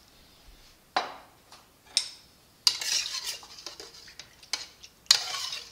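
Wooden pepper mill knocked down on the counter, then a utensil stirring milk and cream in an aluminium saucepan, scraping and clinking against the pot with a short pause before it goes on.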